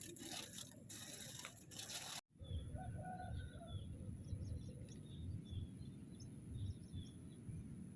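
Close rustling and scraping that cuts off abruptly about two seconds in. Then open-air ambience: small birds chirping in short high notes, a thin steady high tone, and a low rumble of wind on the microphone.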